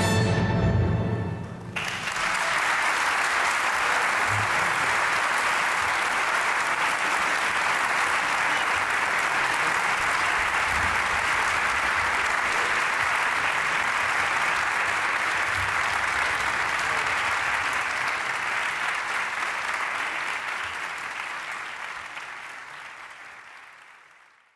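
A chamber orchestra's final chord, held briefly and then cut off sharply. An audience then applauds steadily, fading out near the end.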